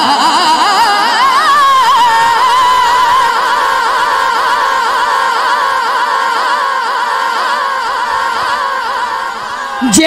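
A man's voice singing a naat a cappella, amplified through a microphone: one long melismatic note that glides upward over the first two seconds and is then held with a quivering vibrato, easing off slightly before a sudden click at the very end.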